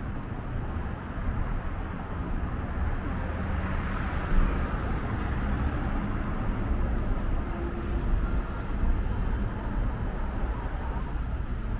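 Steady rumble of road traffic with general street noise, and a brief click about four seconds in.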